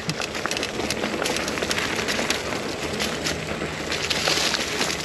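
Mountain bike rolling along a dirt trail littered with sticks and leaf debris: steady tyre and frame rattle noise, with many small crackling clicks.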